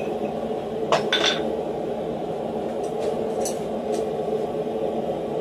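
Steel blacksmithing tools clinking on a steel bolster block: two sharp, ringing clinks about a second in, then a few lighter clinks as tongs take hold of the hot workpiece, over a steady hum.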